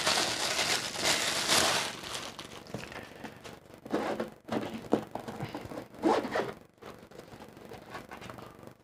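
Plastic wrapping rustles as it is pulled off a zippered hard-shell action-camera carrying case. The case's zipper is then drawn open in a few short pulls around the middle.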